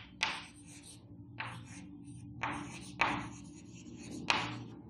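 Chalk writing on a chalkboard: a run of short scratching strokes with brief pauses between them, over a faint steady low hum.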